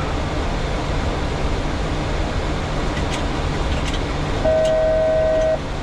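Steady in-flight noise on a Boeing 737 flight deck: airflow and engine and air-system hum. A few faint clicks come about three to four seconds in, then a steady beep lasting about a second near the end.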